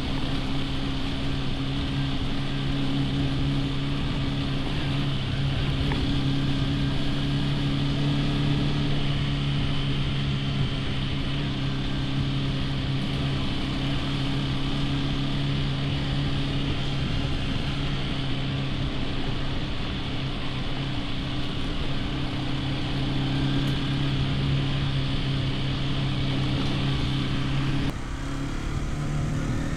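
Hero XPulse 210's single-cylinder engine running steadily under way, with wind and road noise over it. Near the end the engine note drops off suddenly.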